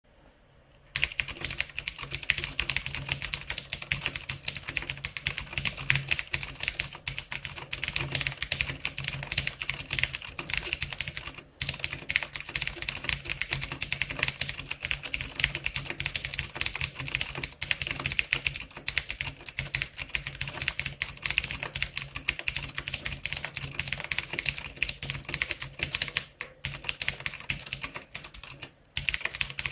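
Fast continuous typing on a CM Storm Quickfire Rapid-i mechanical keyboard with clicky Cherry MX Blue switches, a dense stream of key clicks starting about a second in, with brief pauses a few times.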